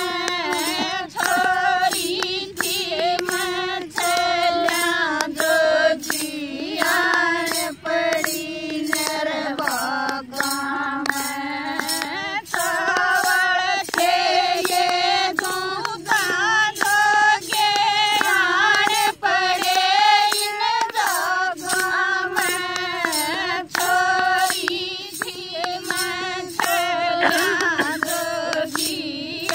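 Women singing a Haryanvi jakdi folk song, with sharp claps keeping a steady beat about twice a second.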